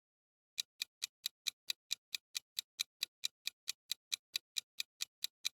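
Quiz countdown-timer sound effect: a fast, even ticking of about four or five ticks a second, starting about half a second in.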